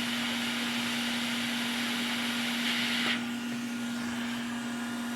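Hot-air rework station blowing steadily with a constant motor hum while the PS5's HDMI port is desoldered; the high part of the hiss drops away about three seconds in.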